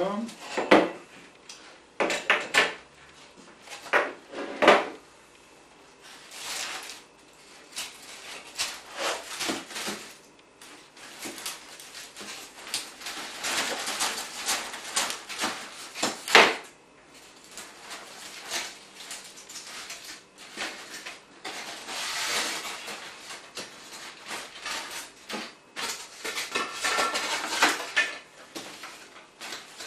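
Handling noise: metal tools clinking and knocking as they are lifted off a polystyrene foam block, then scraping and rubbing as the large foam block is lifted and stood on edge, with scattered knocks throughout.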